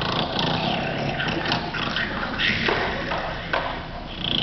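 A stage actor playing the sleeping wolf, snoring in an exaggerated, theatrical way, with a few sharp knocks among the snores.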